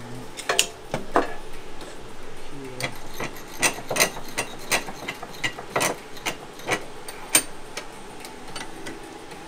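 Sharp metallic clicks and clinks, irregular at a few a second, from a hand tube-flaring tool clamped in a bench vise as it is worked on steel fuel line.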